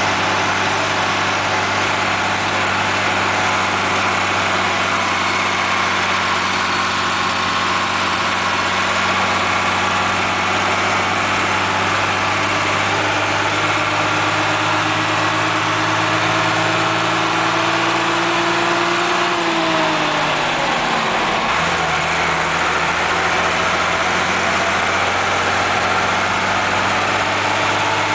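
Fendt 610 LS tractor's diesel engine running steadily under way, heard from inside the cab. A whine rises slowly in pitch, then the engine note and the whine drop away about twenty seconds in as the revs fall.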